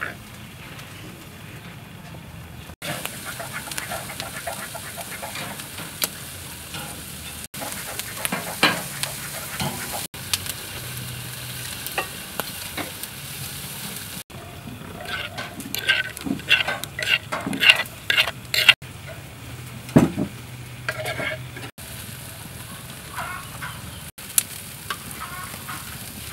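Skewered pork sizzling on a grill, a steady hiss with bursts of crackling about fifteen to nineteen seconds in.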